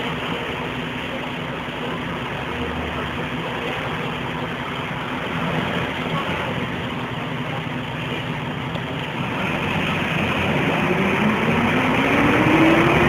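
Diesel engine of an Ikarus 280 articulated bus, heard from inside the passenger cabin, idling steadily; about ten seconds in it revs up, with a steadily rising whine and growing loudness, as the bus pulls away.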